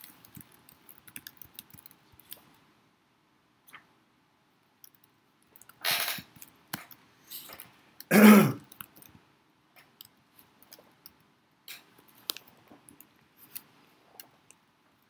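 A man clearing his throat: a short breathy burst about six seconds in, then a louder throat-clearing about two seconds later. Faint scattered clicks around them.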